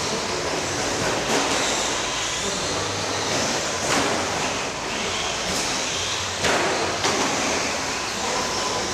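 1/10 scale two-wheel-drive RC buggies and short course trucks racing around an indoor clay track: a steady whir of motors and tyres with several short knocks, echoing in a large hall.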